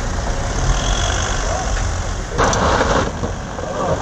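A motor vehicle engine running: a steady low rumble, with a short rush of noise lasting about half a second around two and a half seconds in.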